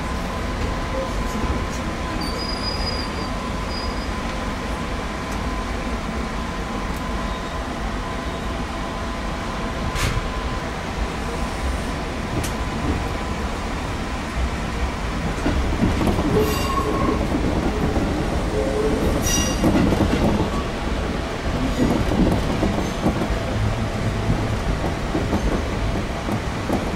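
Electric train running on rails: a steady rumble that grows louder about halfway through, with brief high wheel squeals and a few sharp clicks.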